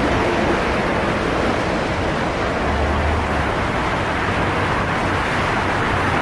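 Steady highway traffic: a continuous wash of tyre and engine noise from many passing vehicles, with a low rumble swelling briefly in the middle.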